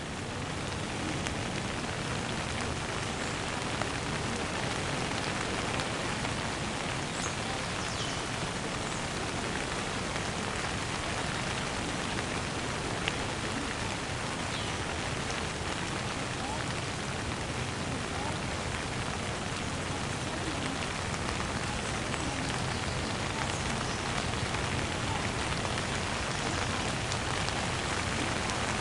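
Steady rain falling: an even, unbroken hiss with a few faint scattered drop ticks.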